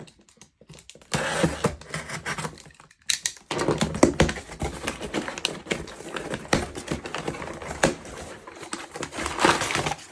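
A cardboard shipping box being opened and unpacked by hand: a quick, irregular run of clicks, scrapes and rustles of cardboard and packing material.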